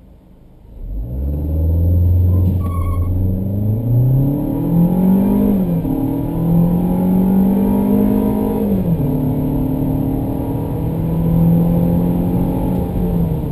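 1.4-litre turbocharged four-cylinder of a 2015 Holden Trax LTZ accelerating hard at full throttle from standstill, heard from inside the cabin. About a second in, the revs rise from idle and the engine note climbs. It drops sharply as the six-speed automatic changes up, twice, about five and a half and nine seconds in, then climbs again.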